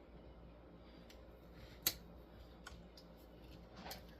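A few light clicks and taps of small tools and parts being handled at a soldering bench, with one sharper click about two seconds in, over a faint steady low hum.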